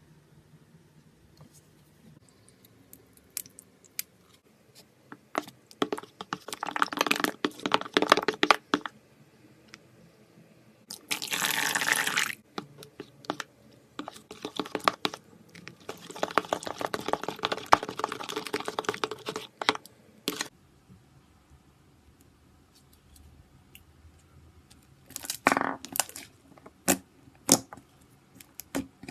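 A slime-filled stress ball being cut and handled: bursts of crackling a few seconds long, one a denser hiss, with scattered sharp clicks in between.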